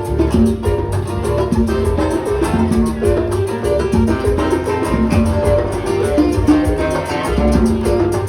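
Background music: an upbeat Latin-style track with plucked guitar over a steady beat.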